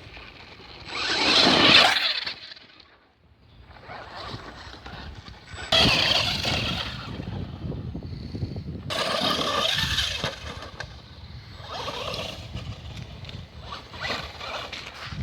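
Helion Dominus 10TR electric RC buggy running in repeated bursts of acceleration with short pauses between, the loudest burst near the start.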